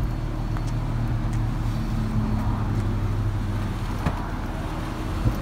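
Infiniti G37x's 3.7-litre V6 idling steadily through its twin exhausts, with a couple of light clicks near the end.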